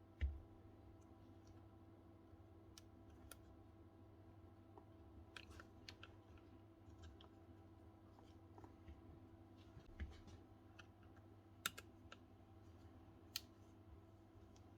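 Quiet handling at a workbench: scattered small clicks and taps of parts and tools being handled, with a soft low thud just after the start and another about ten seconds in, over a faint steady hum.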